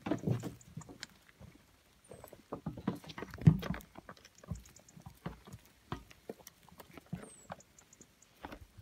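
Goat kids' small hooves clattering on stony ground and a plastic toy truck being knocked about, in irregular light knocks with one louder thump about three and a half seconds in.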